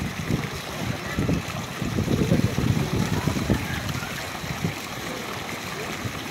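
Swimmers splashing in an outdoor swimming pool, loudest a couple of seconds in and easing off, over a steady watery hiss.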